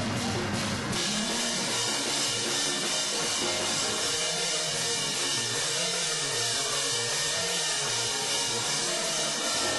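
Church praise band playing with a drum kit, between sung lines of a worship song; the deep bass drops away about a second in.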